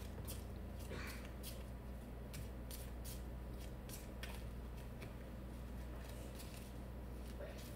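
A deck of tarot cards being shuffled by hand: a run of quick, irregular card flicks and snaps, over a steady low hum.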